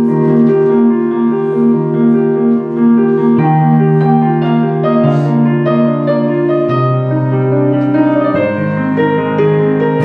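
Instrumental keyboard music: slow, sustained chords with a simple melody over them, changing about once a second.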